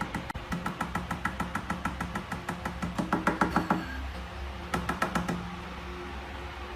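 A fast series of light knocks or taps, several a second for nearly four seconds, then a brief second run a little after the middle, over a steady low hum.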